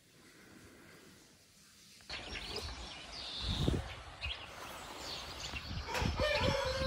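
Outdoor morning ambience with birds chirping, getting much louder about two seconds in. Near the end an animal gives a longer, held call.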